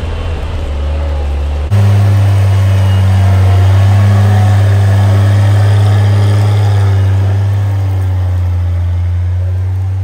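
1978 Bedford M-series 4x4 fire truck's engine running steadily at a constant speed, heard close up. About two seconds in the sound changes abruptly and gets louder.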